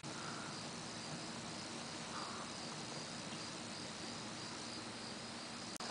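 Faint cricket chirping steadily in a regular pulsing rhythm over quiet outdoor background hiss.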